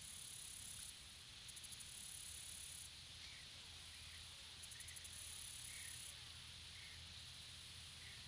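Near silence: the faint steady hiss and low hum of an outdoor camera trap's recording, with a few faint, short high chirps.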